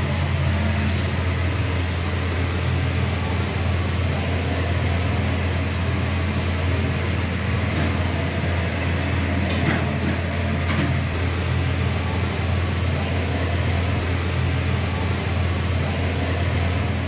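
Steady low mechanical hum of running commercial kitchen equipment, with a few faint clicks about eight to eleven seconds in.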